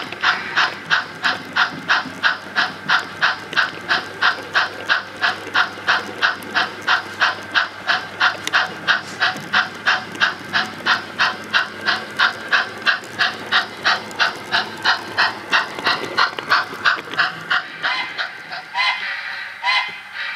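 Sound-equipped On30 model steam locomotive chuffing steadily at about three chuffs a second, fading out near the end. A couple of short sliding tones follow just before the end.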